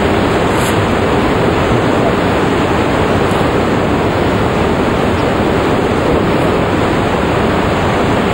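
Steady, loud rush of a waterfall's falling water, an even noise with no breaks that cuts off suddenly at the end.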